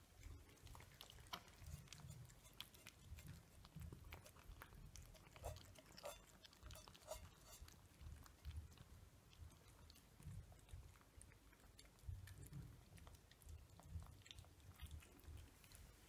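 Cats eating from their bowls: faint, irregular chewing and crunching clicks, with soft low thumps in between.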